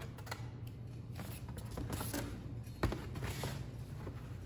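Room tone: a steady low hum with scattered small clicks and rustles, and one sharp click about three seconds in.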